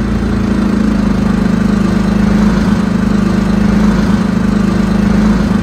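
Harbor Freight Predator 420, a 13 hp single-cylinder four-stroke engine driving a Swamp Runner surface-drive mud motor, running steadily and loudly at an even, unchanging speed.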